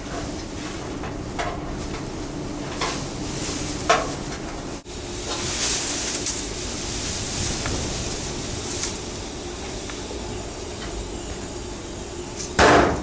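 MIG welder tack-welding a steel filler sliver into a chopped roof seam: a crackling sizzle for a few seconds in the middle, with a few sharp knocks before it and a loud clatter near the end.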